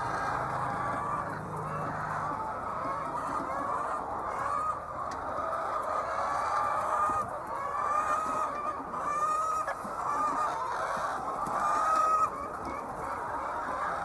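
A flock of laying hens clucking, many overlapping drawn-out calls at once, growing louder in the second half; one loud call cuts off sharply about twelve seconds in.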